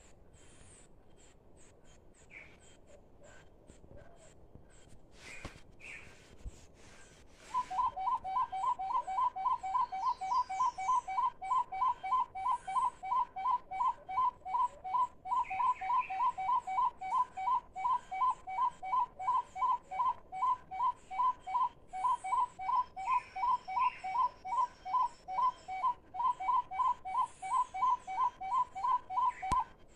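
Hand-blown bird call (a hunter's pio) giving a fast, very regular series of two-pitched whistled notes, about three a second, starting about seven seconds in. Faint high chirps from forest birds are heard around it.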